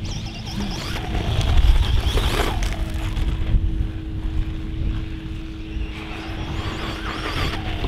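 Losi Promoto MX 1/4-scale electric RC motorbike driving over gravel and grass, its brushless motor whine rising and falling in pitch with the throttle. A heavy low rumble of wind on the microphone lies underneath and is the loudest part.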